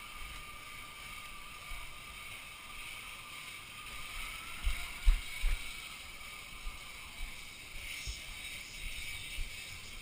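Steady outdoor hiss with scattered low bumps and knocks on the body-worn camera's microphone as the player moves. Three heavier knocks come about five seconds in.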